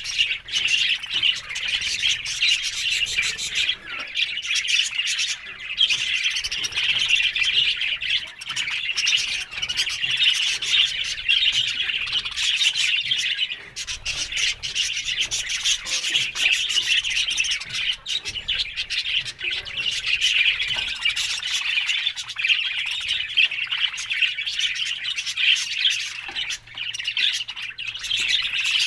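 A group of budgerigars chattering and chirping continuously, many birds calling over each other.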